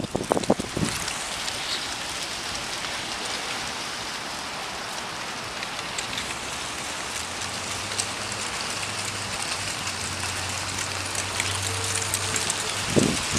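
Steady wind noise on the microphone, an even hiss with no break. About seven seconds in, a low steady hum joins it.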